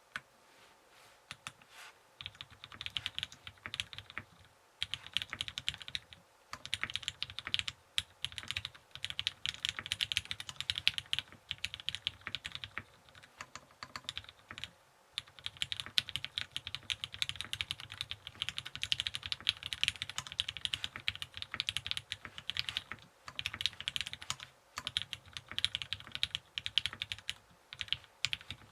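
Fast typing on a Keycult No. 2/65 custom mechanical keyboard with lubed, filmed Hyperglides/Cherry MX Black linear switches on an aluminum plate, gasket-mounted, with GMK keycaps: a steady stream of keystroke clacks in runs with short pauses. The typing starts about two seconds in.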